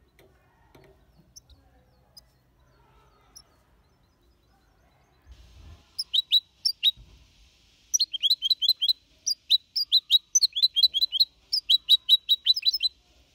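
Young goldfinch hybrid (mixto) singing a Copia Málaga style song. About six seconds in it starts a rapid string of short, clipped, downward-sweeping notes, pauses briefly, then runs on in a longer fast series.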